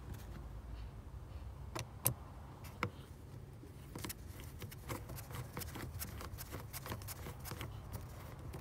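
Scattered light clicks and taps of plastic engine-bay parts and clips being handled and pressed into place, over a steady low rumble.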